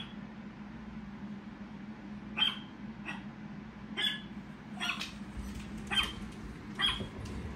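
Short dog barks, about six single barks spaced roughly a second apart, from recorded dogs rather than live ones.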